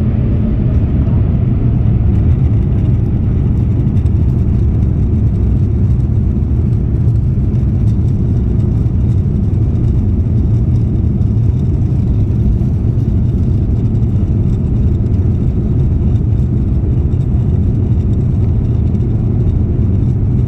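Airbus A350-900's Rolls-Royce Trent XWB turbofans spooling up to takeoff thrust, heard from the cabin during the takeoff roll. A whine rises in pitch over the first second or two, then gives way to a steady, deep, loud rush of engine and runway noise.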